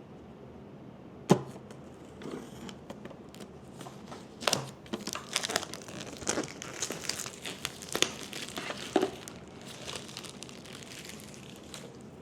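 Packaging being unwrapped and torn open by hand: a sharp snap about a second in, then irregular crinkling, rustling and small clicks.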